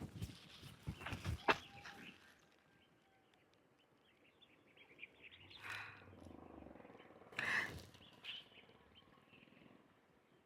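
Faint outdoor ambience of quick, high chirping from wildlife. There are a few sharp knocks in the first two seconds, and two brief louder noisy sounds come about six and seven and a half seconds in.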